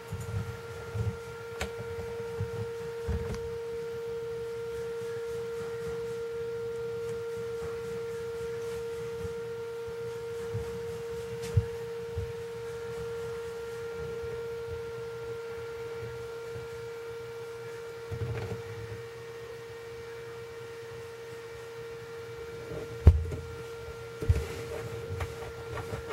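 A steady electrical hum, one constant mid-pitched tone with fainter overtones above it, with scattered soft knocks and bumps; the loudest bump comes near the end.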